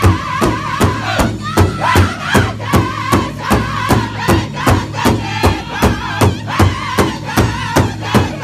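Northern-style powwow drum group: several men striking a large hide-covered drum in unison, a steady beat a little over two strokes a second, while singing together in chorus.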